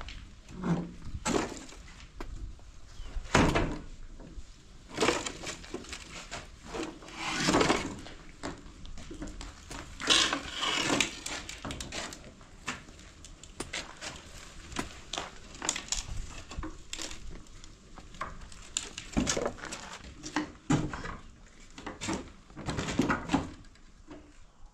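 Wooden branches and poles being handled: irregular knocks, cracks and rustling.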